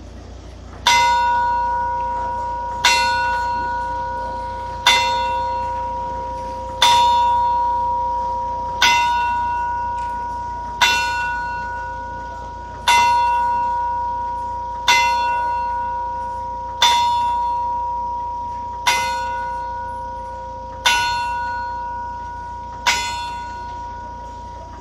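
A single clock-tower bell on the astronomical clock striking slowly and evenly, one stroke every two seconds. Each stroke rings on the same pitch and fades before the next, twelve strokes in all.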